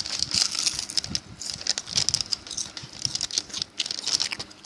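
Plastic snack packet of seaweed being handled and crinkled, in quick irregular crackles and clicks that come in bursts.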